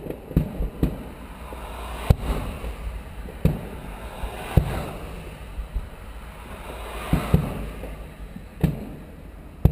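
Aerial fireworks shells bursting at a distance: about eight sharp booms at uneven intervals, some in quick pairs, each trailing off in a rolling echo.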